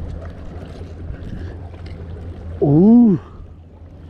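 A man's short wordless vocal sound, its pitch rising then falling, about two and a half seconds in. Under it runs a steady noise of wind on the microphone and water.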